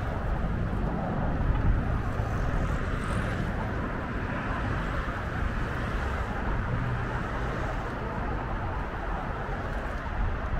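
Steady rumble of road traffic passing, with no distinct single event standing out.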